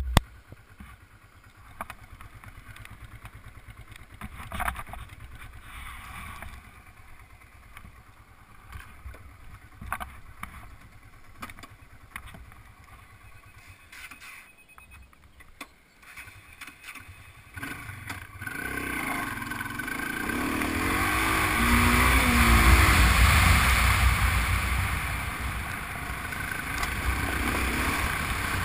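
Honda Transalp's V-twin engine running as the motorcycle rides over a gravel track, with tyre and gravel noise. The sound is low and muffled at first; a little past halfway it grows much louder, with a steady rush of wind over the microphone as the bike picks up speed.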